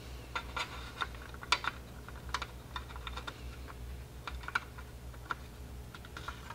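Light, irregular clicks and taps of hard styrene model-kit parts being handled and fitted against a plastic hull.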